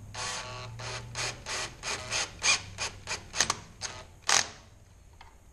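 Cordless drill/driver driving a mounting screw through a plastic electronics enclosure, run in a quick series of short bursts, about three a second, as the screw is snugged down flush. The bursts stop about four and a half seconds in.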